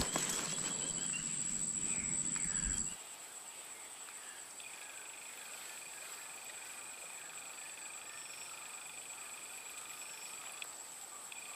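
Insects calling: a steady high-pitched trill, joined by a second, lower trill from about four and a half seconds in until near the end. For the first three seconds a louder rushing noise covers it, then stops abruptly.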